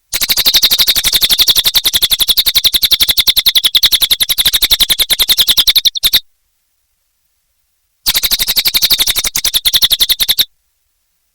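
Cililin bird singing a rapid, even, high trill in two long runs: about six seconds, a two-second pause, then about two and a half seconds.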